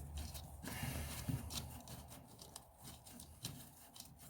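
Irregular small clicks and rubbing from hand tools and parts being handled, with a low hum under the first second or so.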